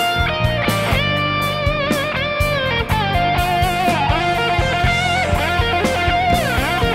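Lead electric guitar on a Stratocaster-style guitar, playing long sustained notes with string bends and vibrato, with a deep bend down and back up near the end. Underneath is a band backing with a steady beat and held low notes.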